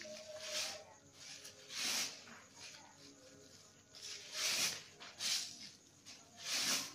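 Shiny plastic whip-cord strands rasping and rustling as they are twisted and pulled tight by hand into a braid, about five sharp hissing rubs spaced a second or so apart.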